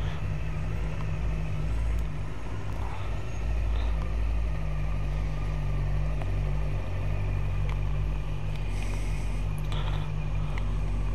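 Motorcycle engine idling with a steady low rumble.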